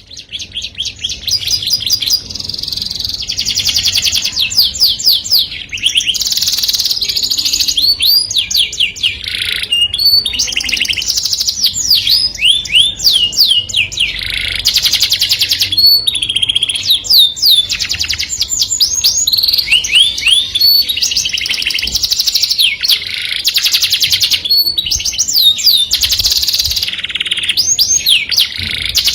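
Canary singing a long, continuous song of high, rapid trills alternating with sliding whistled notes, with barely a pause.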